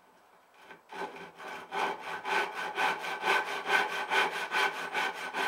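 Japanese crosscut-and-rip handsaw cutting through wood in quick, even strokes, about three a second, starting about a second in. The cut goes fast and easily.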